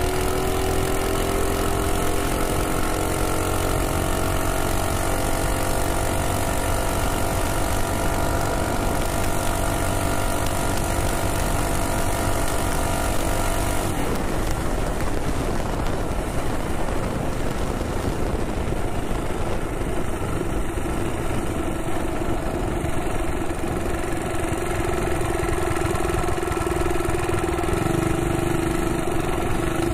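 Minibike's Predator Ghost single-cylinder engine running hard, its note climbing steadily as the bike accelerates to about 46 mph, with wind rushing over the microphone. It changes suddenly partway through, and near the end the engine holds a steadier, lower note as the bike slows.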